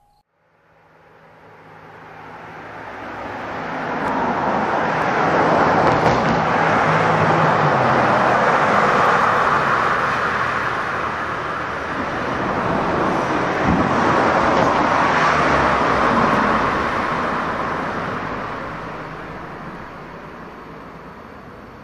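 Road traffic passing on a city street: a broad rush of tyre and engine noise that builds over several seconds, dips briefly about halfway, swells again and then slowly fades.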